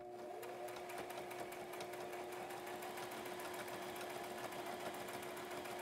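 Budget Brother domestic sewing machine stitching a straight quilting line through a quilt's top, batting and backing: a steady motor hum with rapid, even needle strokes, running smoothly.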